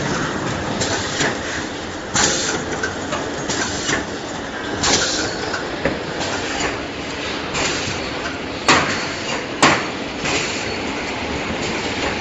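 Automatic L-sealer shrink-wrap packaging machine with collator running: a steady mechanical clatter with irregular clacks, and two sharp knocks about a second apart roughly nine seconds in.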